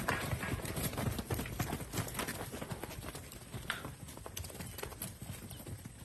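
Hooves of several young Brahman cattle striking a brick-paved yard as they walk about: an irregular stream of sharp knocks.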